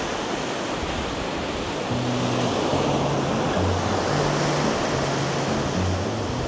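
Surf washing on a beach as a steady rushing noise, with background music whose low bass notes come in about two seconds in.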